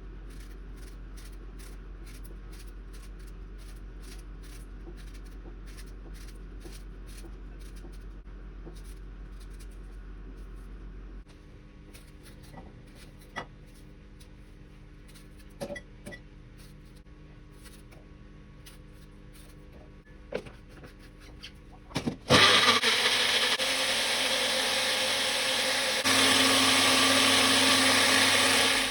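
A run of quick light ticks, then scattered clicks and knocks. Then an electric mixer grinder runs loudly for the last seven seconds or so, stepping up louder partway through, and stops at the end.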